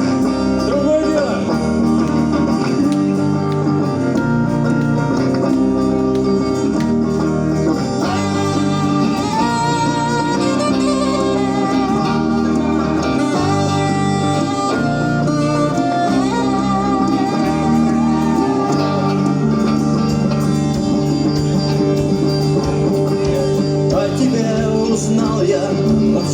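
Saxophone playing a melody over a backing track with sustained bass notes and repeating chords.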